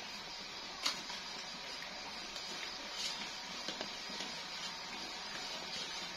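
Aluminium pot of palm sugar and water heating on a stove: a steady hiss with a few faint clicks and ticks.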